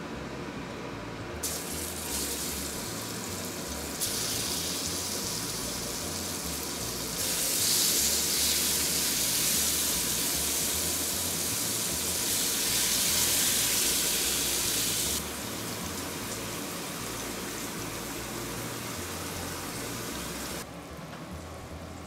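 Cubes of meat sizzling in melted butter on the hot griddle plate of an electric smokeless grill. The sizzle jumps up in steps over the first few seconds, is loudest in the middle, then drops back in two steps toward the end.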